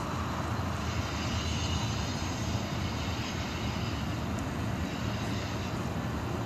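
Distant CSX freight train's cars rolling past on the rails: a steady, even low rumble.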